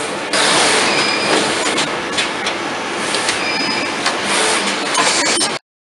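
Roboplas in-mould-labelling robot cell and injection moulding machine running: a steady mechanical hiss with short high whines and several sharp clicks and clacks. It cuts off suddenly near the end.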